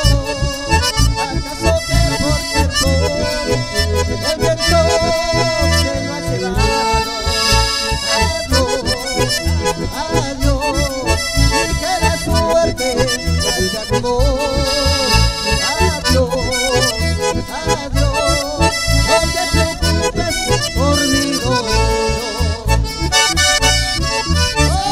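Live instrumental music led by bandoneon and accordion, with guitar accompaniment and a steady pulsing beat in the bass. The reeds hold wavering sustained notes.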